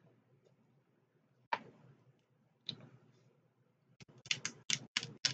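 Two sharp clicks, then about four seconds in a quick run of loud crackles and snaps as seafood is handled and broken apart by hand at the table.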